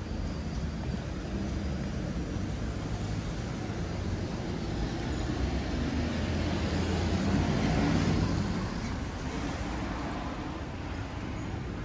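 Road traffic noise, with a vehicle passing that grows louder to a peak about eight seconds in and then fades away.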